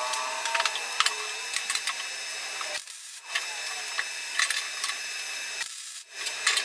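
MIG welder crackling and sizzling as the joints of a square steel tube frame are welded, in two stretches broken by short pauses about three and six seconds in.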